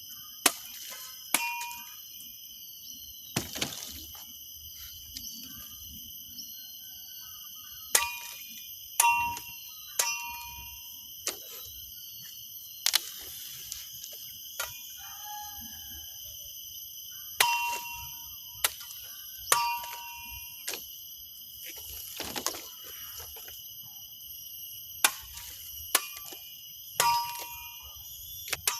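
Machete chopping: a series of sharp strikes at irregular intervals, many followed by a brief metallic ring from the blade. Steady high insect chirring runs underneath.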